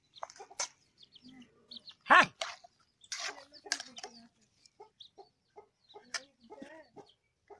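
Chickens clucking, with one loud short call about two seconds in and more clucks near the end, among soft clicks and scrapes of rice being mixed in an aluminium pan.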